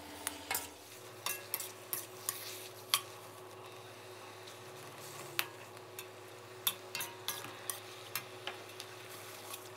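Metal spatula scraping and clicking against a steel pan as oyster mushrooms are stir-fried in a little oil until they wilt, in irregular strokes over a faint steady low hum.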